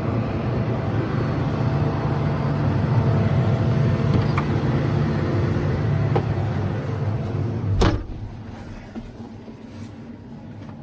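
John Deere S790 combine running steadily under harvest load, a loud deep drone with faint steady tones over it. Near the end a sharp knock, after which the sound is much quieter.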